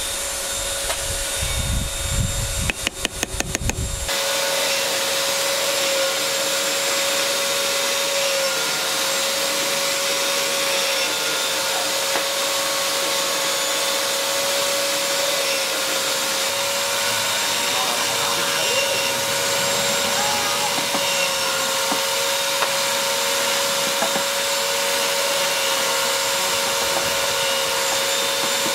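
Electric drill mounted in a stand running steadily with a high motor whine, drilling small holes in wooden belt pieces; the pitch dips slightly now and then as the bit takes load. The drill comes in abruptly about four seconds in, after a low rumble and a quick run of clicks.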